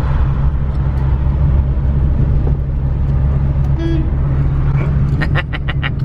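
Vintage Volkswagen car's engine and road noise heard from inside the cabin while driving, a steady low drone. A short pitched beep sounds about four seconds in, and a quick run of ticks comes near the end.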